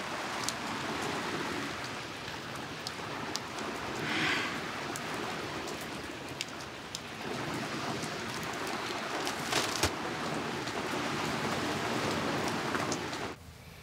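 Steady rain falling, with a few sharp drip-like taps scattered through it; it cuts off suddenly near the end.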